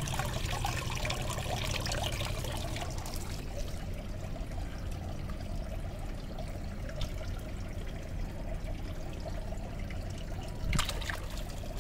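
Water pouring and trickling steadily, with a brief splash near the end as a mesh fish net is worked through a tub of water.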